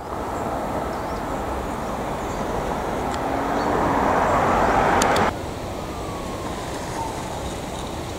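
Road traffic noise. A passing vehicle's tyre and engine noise swells over about five seconds, then cuts off abruptly, leaving a lower, steady traffic rumble.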